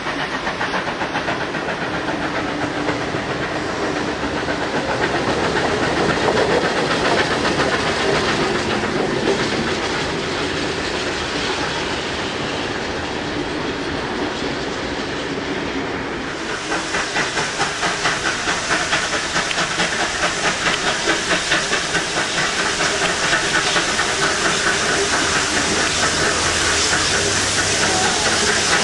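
Steam locomotives working at speed, a dense hissing roar. About 16 seconds in it gives way to the regular exhaust beats of two steam locomotives running side by side, about two to three chuffs a second.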